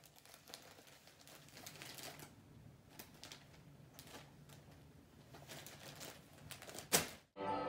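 Faint crinkling and light ticking of wired ribbon and wrapping paper being handled as a present is tied, with one louder rustle about seven seconds in. The sound cuts off abruptly and music begins right at the end.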